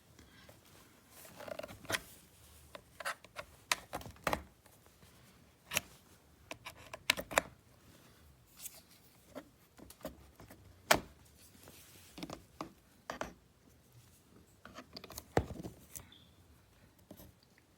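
Handling noise: irregular clicks, taps and rubbing as something is handled, about twenty sharp sounds spread unevenly, the sharpest about eleven seconds in.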